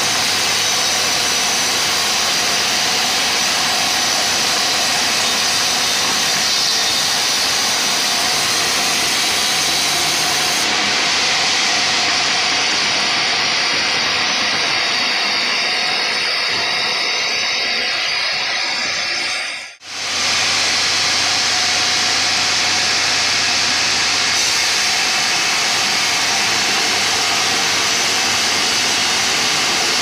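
Sawmill band saw running and cutting lengthwise through a large teak log: a loud, steady hiss of the blade in the wood over the running machine. The sound cuts out for a moment about two-thirds of the way through, then resumes.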